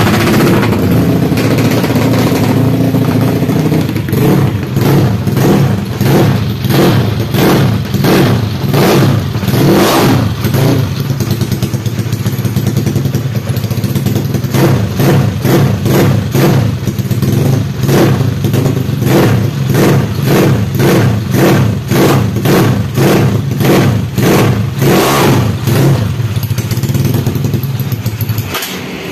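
Suzuki Satria FU drag-bike engine with an open exhaust, idling and being blipped over and over, about two quick revs a second, stopping near the end.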